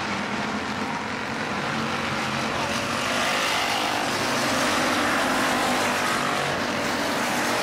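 Several Hobby Stock race car engines running together on the track, getting a little louder about three seconds in.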